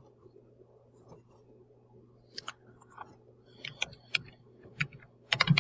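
Computer keyboard being typed on in short runs of keystrokes, starting about two seconds in, with the busiest flurry near the end.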